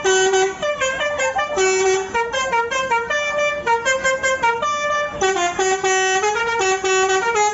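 Tour bus telolet horn, a multi-tone air horn, playing a tune: a quick stream of short notes stepping up and down, with a few longer held notes.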